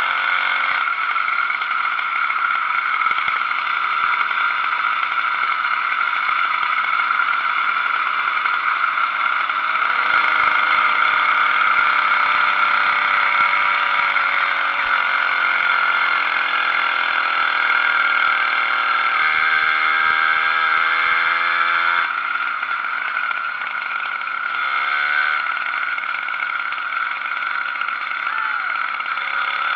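80cc two-stroke bicycle engine kit running continuously while riding. Its pitch rises and falls with the throttle, easing off briefly about two-thirds through before revving up again.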